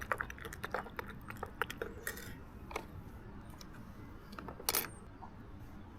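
Scattered light clicks and clinks of small hard objects being handled, with a brief rustle about two seconds in and a louder one just before five seconds.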